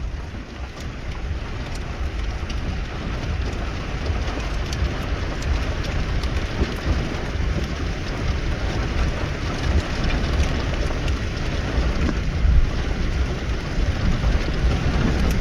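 Steady rain and wind in a thunderstorm, with a heavy low rumble that rises and falls underneath.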